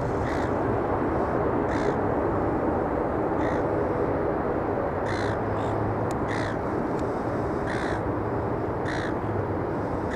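A crow or raven cawing: about seven short calls spaced a second or so apart, over a steady background rumble of aircraft noise.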